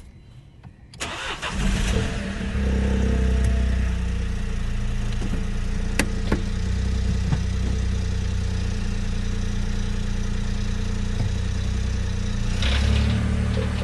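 A 2016 Mini Cooper F56's B38 three-cylinder engine is cold-started: it cranks and catches about a second in, then runs at a steady cold-start idle with a few sharp clicks. Near the end the sound swells and a fast, even ticking sets in.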